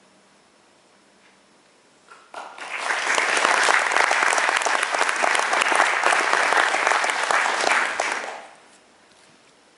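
Audience applauding at the end of a harp piece, starting about two seconds in and stopping about six seconds later.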